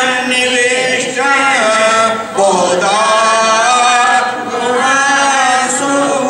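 A small group of men and women chanting a Sanskrit hymn together into a microphone: long held sung notes in phrases, with short breaks about two and four seconds in.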